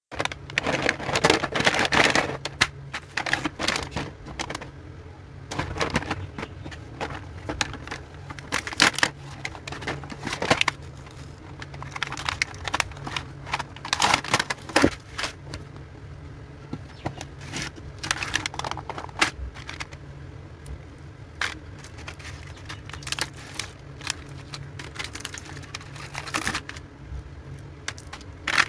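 Small plastic puzzle toys and their packaging being handled: irregular clicks, taps and rustles, over a low steady hum.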